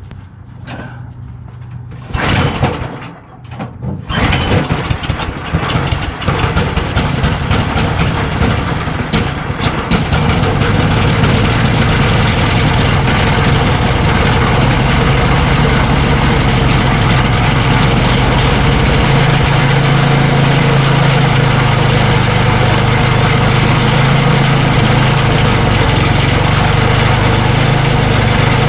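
Ariens ST824 snowblower's single-cylinder engine being pull-started with its starter cord: it catches about four seconds in, runs unevenly for a few seconds, then settles into a steady run.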